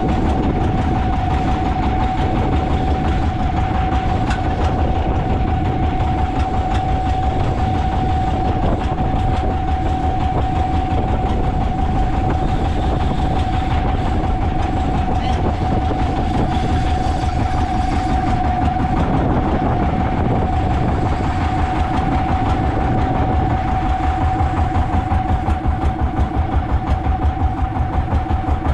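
Fishing boat's engine running steadily under way, a steady whine over a fast, even low throb.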